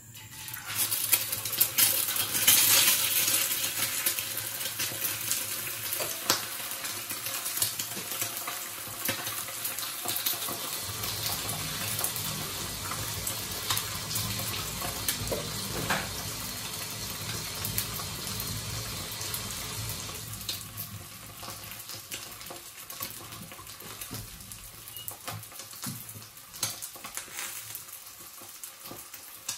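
Food sizzling in hot oil in a frying pan, starting suddenly and loudest in the first few seconds, then settling to a steady sizzle that eases after about twenty seconds. Scattered clinks of a utensil on the pan come through the sizzle.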